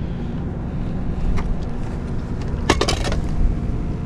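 Landing net being handled against oyster-shell rocks: a few sharp clicks, then a short rattling cluster of clicks about three seconds in, over a steady low rumble.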